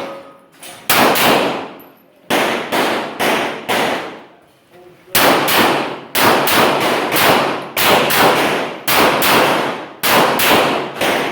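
Rapid 9mm pistol gunfire during a competition stage run: strings of shots about 0.4 s apart, each with a short ringing echo, broken by brief pauses near two seconds in and again around four to five seconds in.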